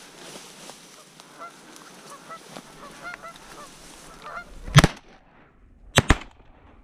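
Geese honking as they flush, then two shotgun shots about a second apart in the second half, the shots by far the loudest sound.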